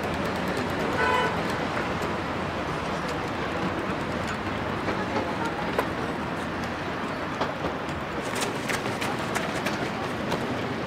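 Outdoor city background: a steady wash of traffic and distant voices, with a short car horn toot about a second in.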